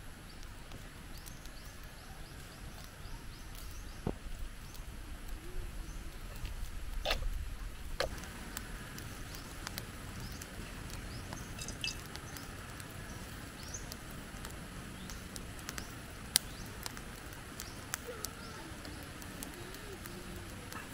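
Wood fire crackling under a frying pan of tuna shanghai, with scattered sharp pops over a steady background and small bird chirps.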